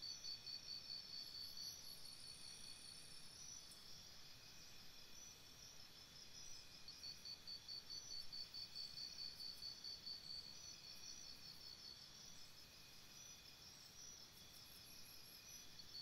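Faint chorus of chirping insects: fast, high-pitched pulsed trills from several callers overlapping, steady throughout.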